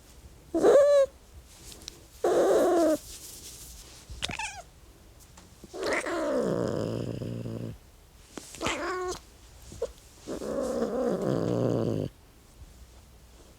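An angry cat yowling and growling: short pitched yowls alternate with longer, rough growling calls, one of which slides down in pitch, with short pauses between them.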